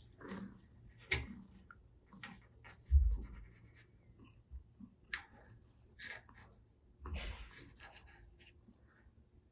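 Light taps and knocks of a pencil and a cat's paws on a wooden desk, with a dull thump about three seconds in and a softer one about seven seconds in.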